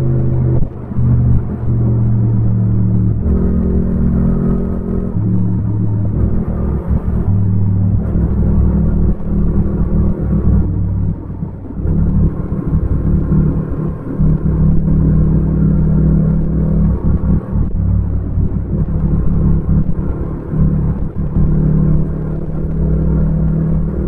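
Yamaha MT-07's 689 cc parallel-twin engine running on the move. Its note holds steady, then steps up and down in pitch, with a short drop in level about halfway through.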